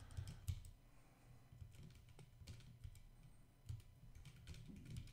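Faint, irregular typing on a computer keyboard: scattered single keystroke clicks.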